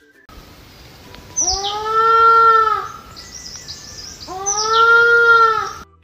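Temminck's tragopan giving two long, bleating calls, each about a second and a half, with a pause of a second or so between them.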